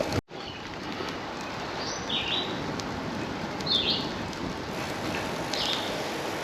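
A few short bird chirps, about two seconds apart, over a steady outdoor noise haze, after a momentary dropout at the start.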